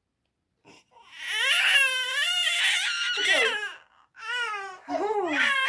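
Infant crying: a long wavering wail starting about a second in, then after a brief pause a run of shorter cries.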